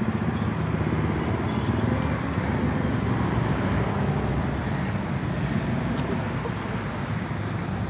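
Steady outdoor street noise, an even low rumble of traffic, with a faint click or two.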